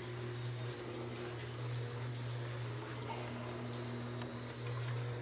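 BISSELL SpinWave powered spin mop running with a steady motor hum, its two spinning pads scrubbing a wet, soapy wooden deck.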